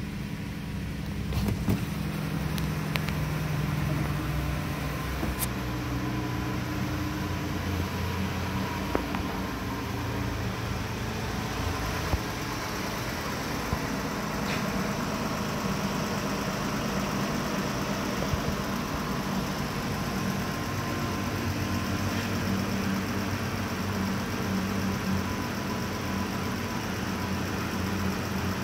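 2012 Chrysler 200's 3.6-litre Pentastar V6 idling steadily, heard first from the driver's seat and later with the hood open. A few light clicks sound over it.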